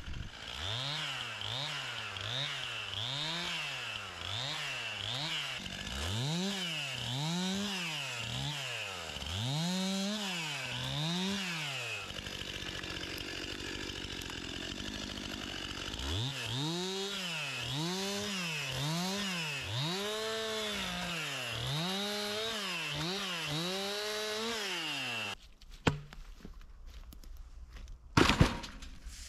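Chainsaw cutting down a dead tree, the engine revved up and down over and over so its pitch rises and falls about once a second, with a steadier stretch mid-cut. It cuts off suddenly near the end, followed by two sharp knocks.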